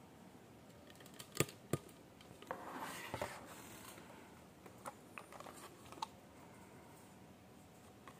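Hot Wheels toy-car packaging being handled: two sharp clicks about a second and a half in, a short scratchy rustle a moment later, then a few light ticks.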